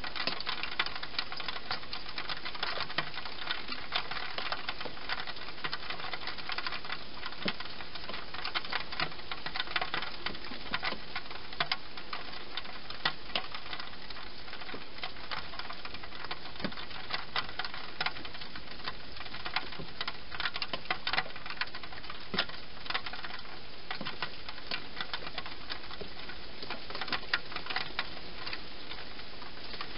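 European hedgehog eating inside a plastic feeding box: irregular quick clicks and crackles of chewing in bunches, over a steady hiss.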